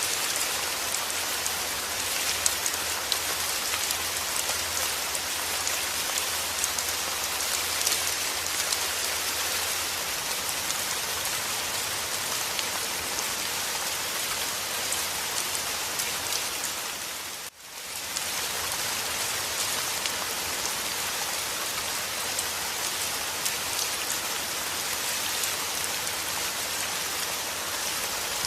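Steady rain falling, with sharper ticks of single drops here and there. About seventeen seconds in, it briefly fades down and comes straight back up.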